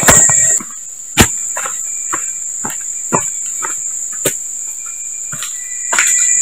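Forest insects calling in one steady high-pitched drone, over scuffing footsteps on a dirt path strewn with dry leaves: a burst of scrambling at the start, then steps about twice a second.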